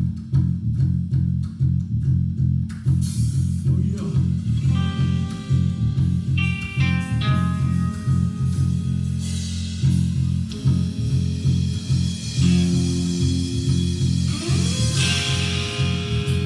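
Live band playing an instrumental passage, amplified through the club PA: a bass guitar riff repeating over a drum kit with cymbals. An electric guitar comes in about three seconds in with single-note lead lines.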